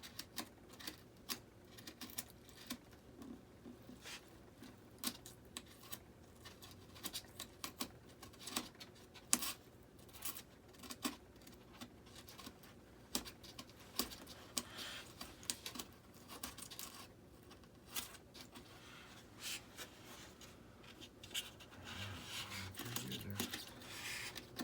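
Small flat-blade screwdriver picking and scraping out pre-cut foam, irregular scratching and clicking, with a denser run of scraping near the end.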